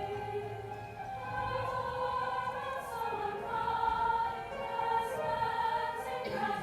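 A choir singing in long held chords that move from one to the next.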